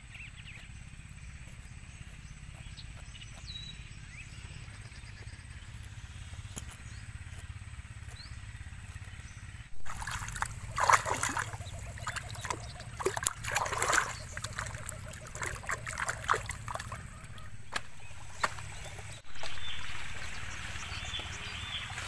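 Water splashing and wet rustling as a small bird, a white-breasted waterhen, is plucked and rinsed at a river's edge, following a stretch of quiet steady low rumble. Near the end, dry sticks and leaves crackle over a steady high insect hiss.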